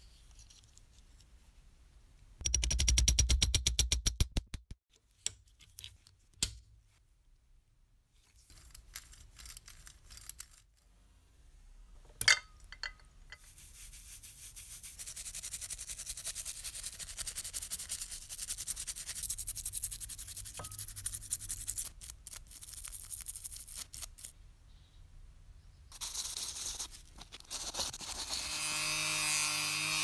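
A toy's clockwork spring motor runs for about two seconds as a fast, even buzz of clicks. Later a toothbrush scrubs a small wet toy figure for about twelve seconds, a steady scrubbing hiss. Near the end a rotary tool with a polishing disc spins up to a steady whine.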